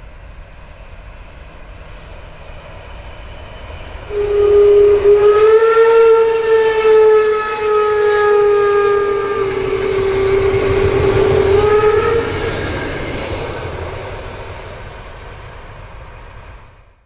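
Steam locomotive whistle, a class 03 express engine, sounding one long steady blast of about eight seconds starting about four seconds in. The train then runs past, its rumble and clatter fading away near the end.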